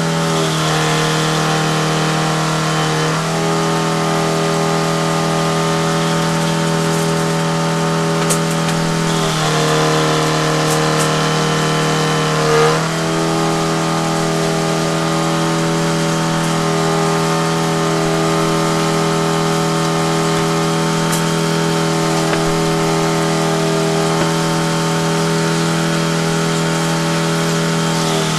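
An engine running steadily under power, its note shifting a few times as the load changes.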